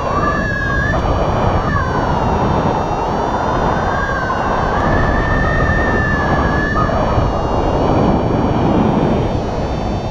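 Wind buffeting a paraglider pilot's camera microphone in flight, a steady rushing rumble. A thin whistle wavers up and down in pitch over it, then fades about two-thirds of the way through.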